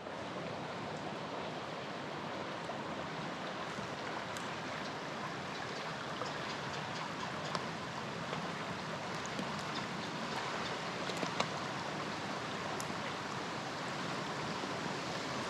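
Steady rush of creek water running over small rapids, with a few faint ticks and splashes, one sharper about eleven seconds in.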